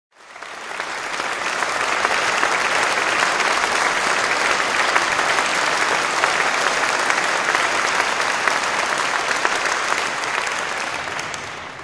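Concert audience applauding: a dense, steady clapping that swells in over the first couple of seconds and fades away near the end.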